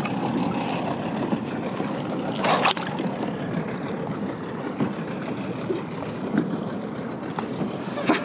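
Seawater sloshing and lapping right at the microphone, with one short, sharper splash about two and a half seconds in.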